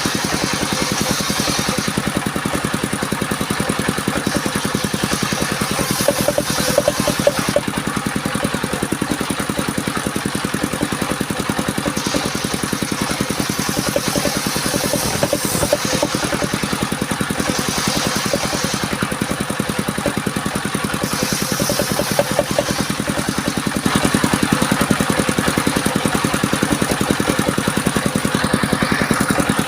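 Engine of a mobile circular sawmill running steadily, with a fine even firing rhythm and the higher sound of the saw shifting every few seconds.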